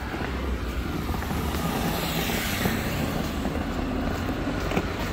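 Road traffic on a city street: vehicle engine and tyre noise, swelling a little around the middle as a vehicle passes.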